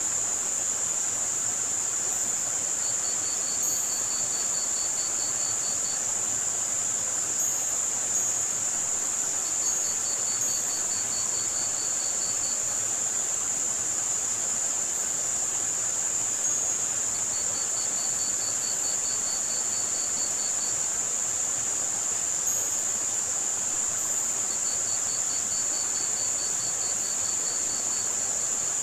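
Layered tinnitus-masking soundscape: a steady high-pitched hiss of filtered white noise over an even background wash, with crickets trilling in four bursts of rapid pulses, each two to three seconds long, and faint short high chirps scattered through.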